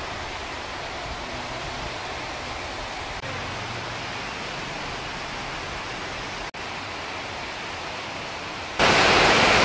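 Heavy rain pouring down in a steady hiss. Near the end it jumps suddenly much louder.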